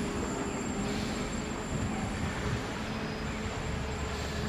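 Sapporo streetcar rolling past, a steady rumble of its wheels on the rails.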